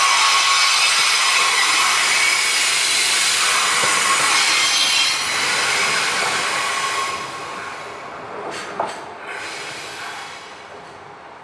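Freight train rolling past close by, the wagons' running noise laced with a steady high wheel squeal. The sound fades away after about seven seconds as the train passes, with a sharp click about nine seconds in.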